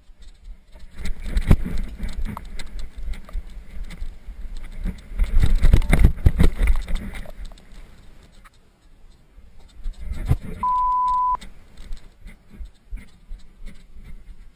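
Dirt bike moving over a rough trail, heard as low wind buffeting on the microphone with knocks and jolts, louder in two stretches early on and in the middle. A single steady electronic beep sounds for under a second about ten seconds in.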